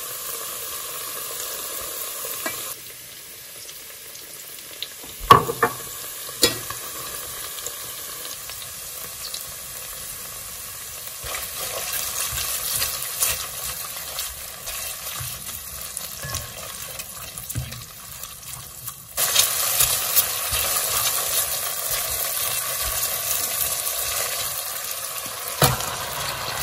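Onions and rendang spice paste sizzling in an enamelled cast-iron pot while a silicone spatula stirs and scrapes, with two sharp knocks a few seconds in. About two-thirds through, the sizzle jumps suddenly louder and brighter and stays so, with raw beef chunks now in the pot.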